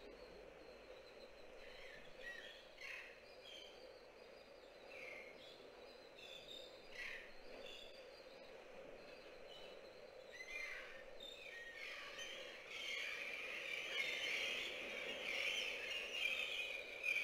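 High-pitched chirps, several short ones scattered through, then a dense chattering that builds over the last few seconds, over a steady low hum.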